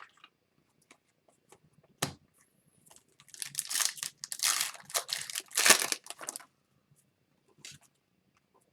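A trading card pack wrapper being torn open and crinkled. There is a sharp click about two seconds in, then about three seconds of crinkling and tearing.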